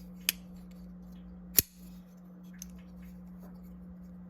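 WE Knives Highfin folding knife being flicked open and closed on its freshly lubed, just-adjusted bearing pivot: two sharp metallic clicks about a second and a half apart as the blade snaps into place, then a faint tick.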